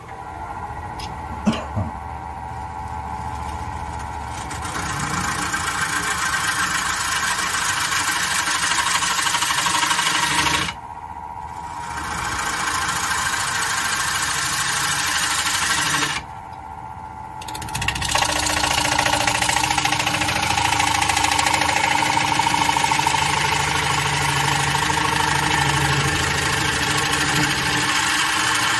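Wood lathe spinning up and running, with a gouge cutting into a spinning punky black walnut bowl: a steady motor whine under rough cutting noise that stops briefly twice.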